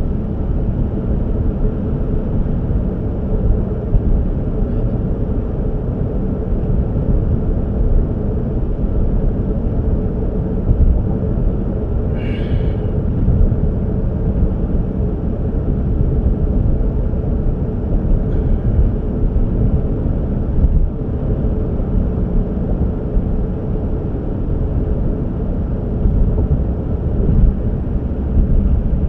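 Steady low rumble of a road vehicle travelling. A short, higher-pitched sound lasting about a second comes about twelve seconds in.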